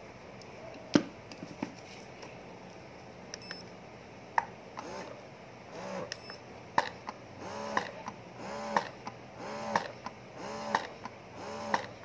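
Spectra wearable breast pump running in massage mode: its motor whines up and down in a steady cycle of about one stroke a second, each with a small click, a rather noisy pump. Before it starts there is a sharp click about a second in and a short beep.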